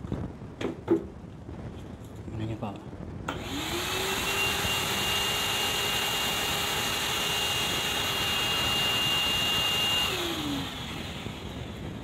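A couple of sharp knocks as the paint-bucket dust separator is handled. About three seconds in, a vacuum cleaner drawing through the homemade bucket dust separator is switched on. Its motor spins up to a steady whine with a thin high tone, runs for about seven seconds, then is switched off and winds down with falling pitch.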